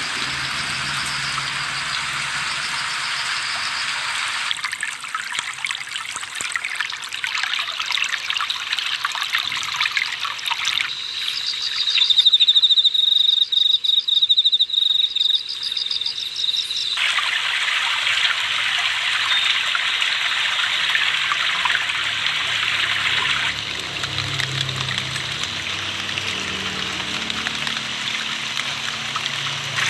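Water trickling and flowing steadily, heard in several cut-together stretches. From about 12 to 17 seconds a loud, high-pitched, pulsing buzz is the loudest sound.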